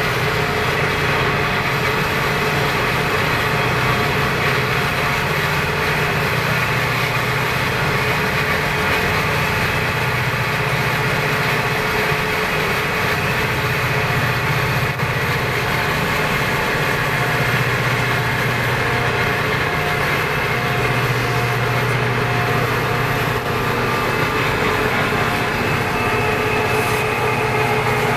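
Florida East Coast freight locomotives' diesel engines running steadily while rolling alongside, heard from inside a moving car pacing them, with the car's road and wind noise mixed in.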